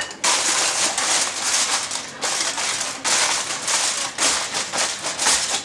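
Aluminum foil crinkling and crackling in uneven bursts as it is pressed and crimped over a roasting pan to tent it.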